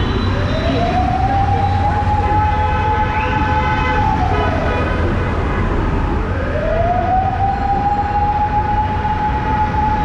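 A siren wailing in slow cycles. It rises in pitch, holds high for a few seconds and falls away about four seconds in, then rises again and falls near the end, over a steady rumble of street traffic.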